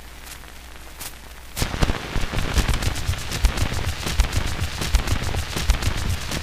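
Surface noise of a 1913 Columbia shellac 78 rpm disc under the stylus after the last note: at first a faint hiss with a few single clicks, then about a second and a half in a loud, rapid crackle of pops and thuds. The stylus has run past the recorded music into the end of the groove.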